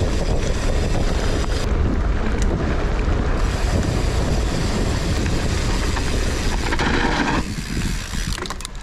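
Wind buffeting the microphone of a camera on a moving mountain bike, mixed with the rumble of tyres and bike on a dirt trail. The rushing noise eases about a second before the end, and a few sharp rattles come through.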